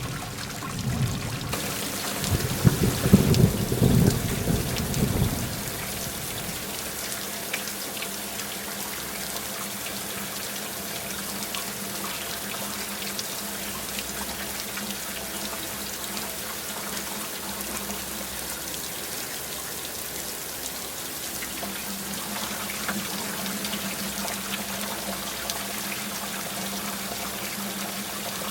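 Heavy rain falling steadily, with a rolling rumble of thunder in the first five seconds or so that then dies away.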